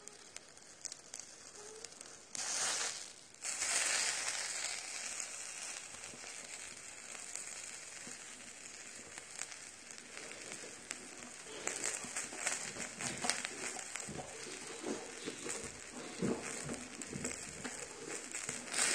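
Pieces of wild boar meat sizzling on a hot stone griddle, with louder surges of sizzle about two to five seconds in as the pieces are moved, then scattered small crackles and clicks through the second half.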